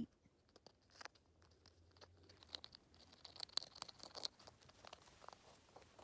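Patagonian conure chewing and tearing at something with its beak: scattered faint clicks and crunches, busiest in the middle.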